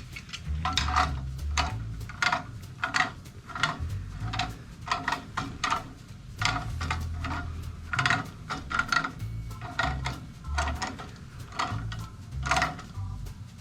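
Metal tools and fittings clinking and scraping as a steam boiler's pressure gauge and high pressure switch are fitted back on: an irregular run of sharp metallic clinks, two or three a second, each with a short ring.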